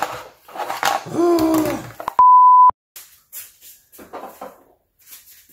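Censor bleep: a single steady high-pitched tone about half a second long, the loudest sound here, coming in right after a man's words about two seconds in and cutting off suddenly, covering a swear word.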